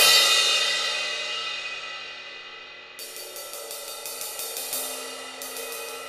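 Sabian AA 16-inch Rock Crash cymbal, cracked and since repaired, struck once hard and left to ring, its bright wash fading over about three seconds. From about three seconds in it is played with a steady run of quick stick strokes, about four a second, over its continued ringing.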